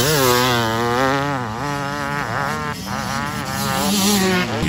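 Motocross bike engine revving hard and close, its pitch climbing and dropping again and again as the throttle is opened and shut.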